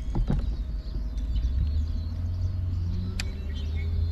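Steady low rumble of wind buffeting the microphone, with a few light clicks and a faint steady hum setting in about halfway through.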